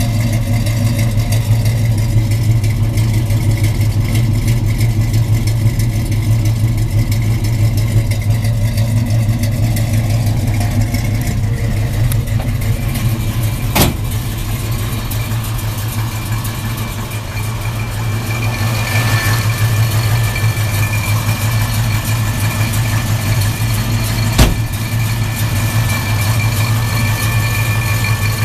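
1972 Chevrolet pickup truck's engine idling steadily through its dual exhaust. A sharp click sounds about halfway through, and another about ten seconds later.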